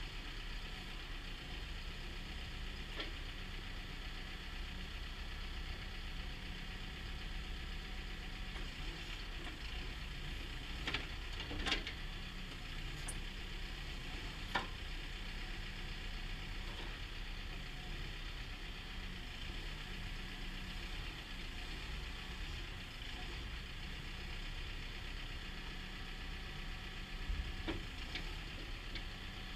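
Caterpillar 420F backhoe loader's diesel engine running steadily at idle, with a few sharp clicks or knocks now and then: two close together in the middle, one a few seconds later, and a couple near the end.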